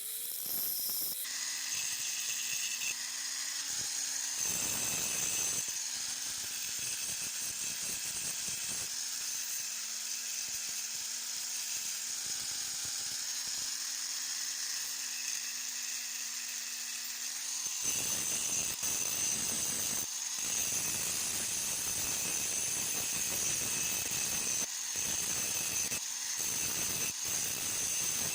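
Parkside 20V cordless mini angle grinder running, with a steady high-pitched motor whine that starts right at the beginning. A rougher, noisier sound joins briefly about four seconds in and again through most of the last third, with short breaks.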